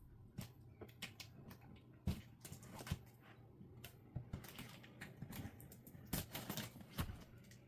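Irregular taps, knocks and light rustles of a boxed sewing machine being handled, with a few sharper knocks about two, three, six and seven seconds in.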